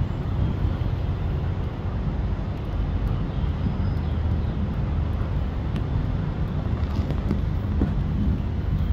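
State Railway of Thailand diesel railcar approaching slowly, its diesel engine running with a steady low rumble; a faint engine tone comes up in the second half as it draws nearer.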